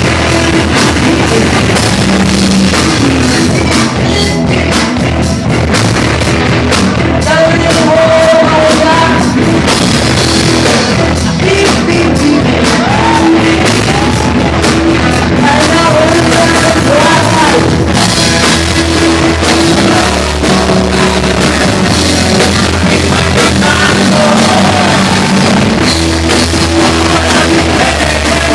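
A rock band playing live, with a drum kit and a voice singing over the loud, continuous band sound.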